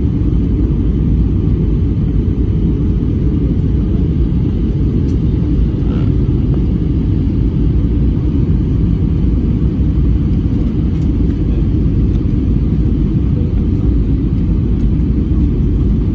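Steady low rumble of a jet airliner in flight, the engine and airflow noise heard inside the passenger cabin.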